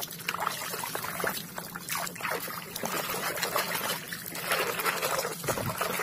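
Water sloshing and splashing in a plastic basin as a hand scrubs a muddy plastic toy rifle under the surface, an uneven run of swishes and small splashes.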